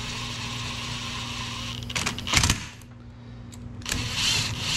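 Cordless power driver spinning a socket extension to run bolts down into the engine covers, running for almost two seconds, then a short burst of rattling clicks, then a second shorter run near the end.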